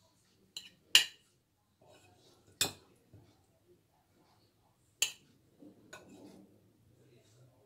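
A serving utensil clinking against a ceramic plate as boiled potatoes and vegetables are dished onto it: a handful of sharp clinks a second or two apart, the loudest about a second in, with soft handling noise between.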